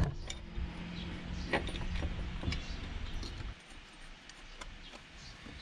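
A few light metallic clicks and clinks of steel bolts being handled and fitted into a water pump housing, over a low steady hum that stops about three and a half seconds in.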